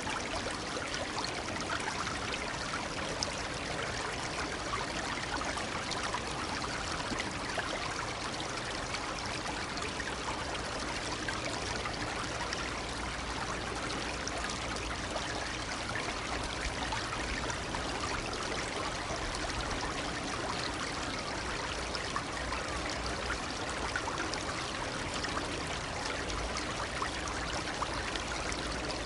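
A shallow stream babbling and trickling steadily over stones, an even rush of water with small splashing flecks throughout.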